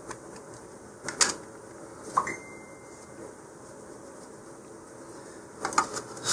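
Handling noise from fiberglass rocket parts: a sharp click about a second in, a smaller one a second later, and a cluster of knocks near the end as the avionics-bay coupler is pushed into the body tube.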